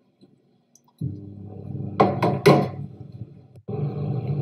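Three quick knocks and clinks of kitchen utensils about two seconds in, over a steady low hum that cuts in abruptly about a second in and drops out for a moment near the end.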